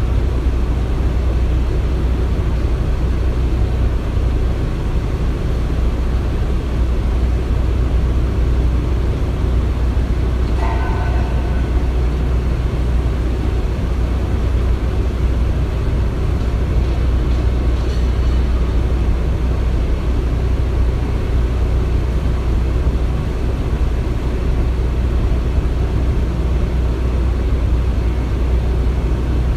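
Construction site ambience: a steady low rumble of heavy machinery, with a brief high-pitched squeak about ten and a half seconds in.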